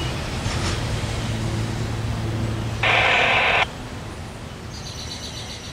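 Freight train of open hopper cars rolling away, a low rumble that slowly fades. A little under three seconds in, a loud burst of hiss starts and cuts off abruptly after under a second.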